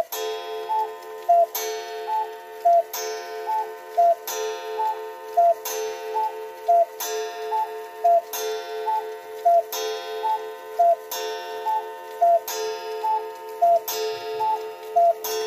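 Russian Majak cuckoo clock striking twelve. Its two-note cuckoo call repeats with a gong stroke about every second and a half, and the gong rings on between strokes. It is driven by a brass-plate count-wheel strike movement.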